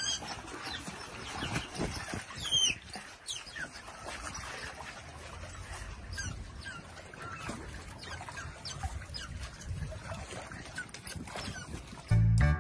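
Small animal squeaking: many short, high calls that slide down in pitch, coming at irregular intervals over a faint low background.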